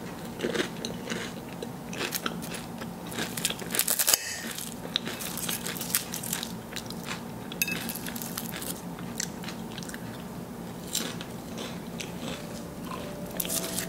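Crisp baked puff pastry of a mille-feuille crunching and crackling as a fork breaks down through its layers: an irregular run of sharp cracks, loudest about four seconds in.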